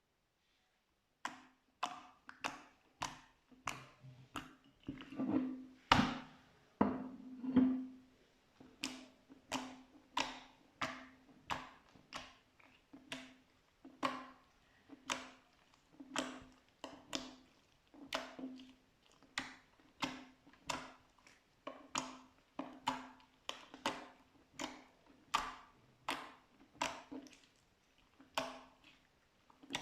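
Slime being pressed and worked by hand in a steady rhythm, a short wet pop or click about every 0.7 seconds, a few louder ones near the middle.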